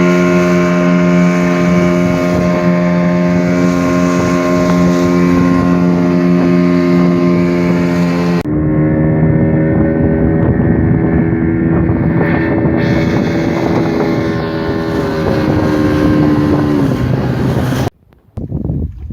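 Two-stroke speedboat engine converted to run on LPG, running steadily at speed. About halfway the sound changes abruptly to a rougher mix of engine and wind or water rush. The engine note falls a little near the end, and the sound drops off sharply just before the end.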